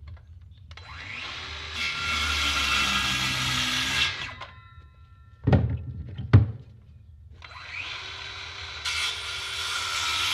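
Electric power saw spinning up and cutting through a wooden board, twice, each cut lasting about three seconds, with the blade's whine fading as it spins down after the first cut. Two sharp wooden knocks come between the cuts.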